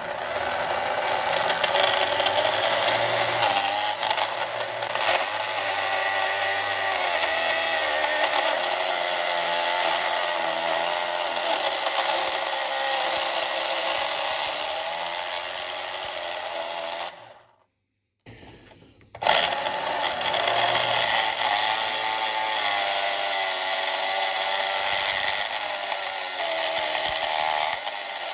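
The small electric motor of a Carrera slot car spins its rear axle at speed while a hand-held blade scrapes the plastic rear wheel, turning off the moulded dimples that make the tyres wear unevenly and growl. It is a steady whir of wavering pitch with scraping over it. The sound cuts out for about a second and a half roughly two-thirds of the way through, then starts again.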